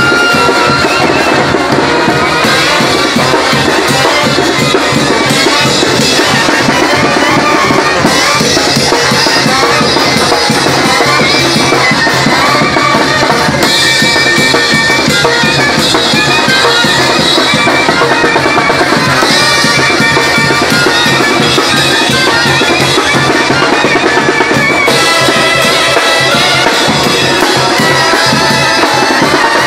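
A Mexican brass band (banda) playing live and loud: a brass melody over tuba bass and steady drums.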